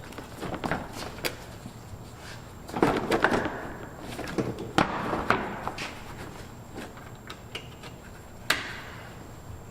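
Plastic under-engine splash shield being fitted up under the car, with irregular knocks, clatters and rattles as the panel is handled and pushed into place; the busiest handling comes about three and five seconds in, and a single sharp knock comes near the end.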